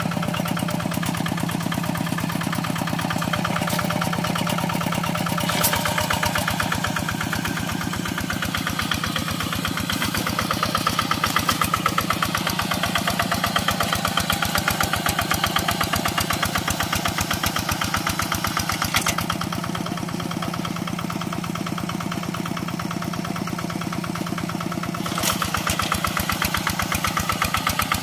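Quick Impala hand tractor's diesel engine running steadily, with a rapid, even firing beat and slight rises and falls in level.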